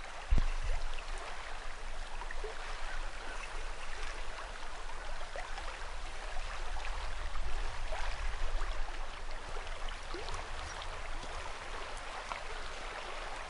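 Steady rush of a flowing river, with a low rumble on the microphone and a single thump near the start.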